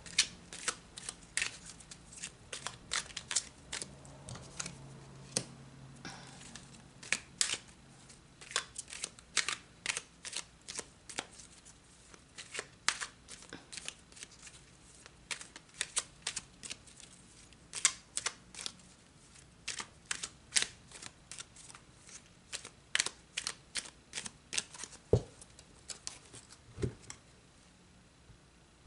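A deck of tarot cards being shuffled by hand: a long, irregular run of crisp card snaps, a few a second, with a couple of duller knocks on the table near the end.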